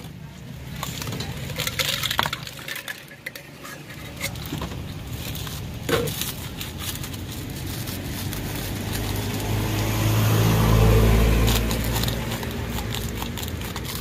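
Scattered clinks and knocks of a metal spoon and utensils against a stainless steel mixing bowl, then a passing motor vehicle's engine rumble that swells to the loudest sound in the second half and fades away.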